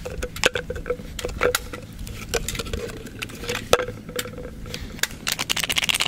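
Plastic jar and small foil packet being handled: light clicks and taps of the jar and its screw lid and the crinkle of the packet, becoming a denser run of clicks and rustling about five seconds in.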